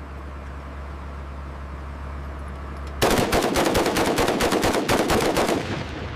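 M240 7.62 mm belt-fed machine gun firing one sustained burst of rapid automatic fire, about two and a half seconds long, starting about halfway through. Before the burst there is a steady low hum.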